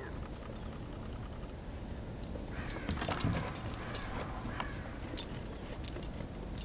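Basset hound puppy nosing and snuffling through snow, louder for a second or two in the middle, with scattered small metallic clinks from her collar tags as she moves.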